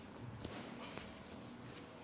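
Faint shuffling movement with a couple of soft knocks, about half a second and a second in.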